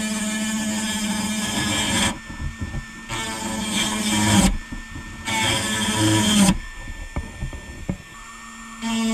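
Handheld rotary tool with a small abrasive bit grinding at the metal axle end of a toy truck wheel: a steady motor whine with gritty grinding in three spells of a second or two each. It stops about six and a half seconds in, leaving a few light clicks, and starts again near the end.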